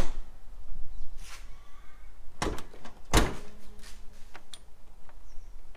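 Scattered clicks and knocks of hands working an antenna cable into place against a 4WD's bonnet edge, headlight and bull bar, with one heavier thump about three seconds in.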